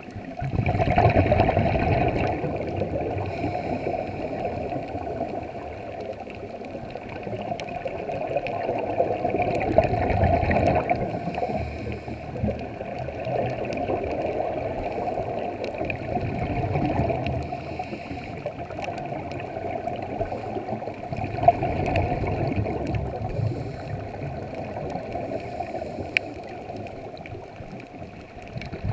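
Underwater gurgling of scuba regulator exhaust bubbles, swelling and fading every several seconds with the divers' breaths.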